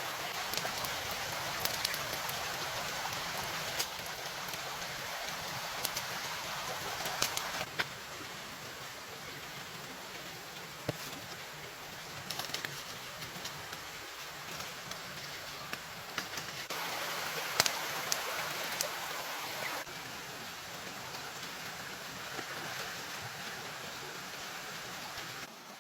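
Steady hiss of rain with scattered sharp taps of drops, the level stepping up and down several times.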